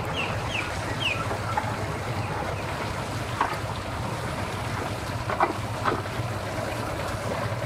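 Outboard motor of a small center-console boat idling at low speed, a steady low hum under wind noise on the microphone. A few short, high, falling chirps sound in the first second.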